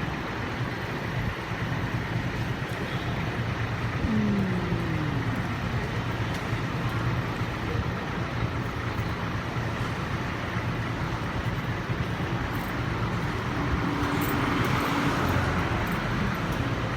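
Road traffic running steadily, with a falling engine tone from a passing vehicle about four seconds in and another vehicle swelling louder around fourteen to fifteen seconds.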